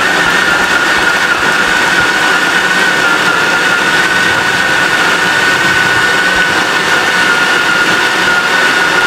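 Electric food processor motor running with a steady whine, its blade mincing chunks of raw chicken breast and thigh.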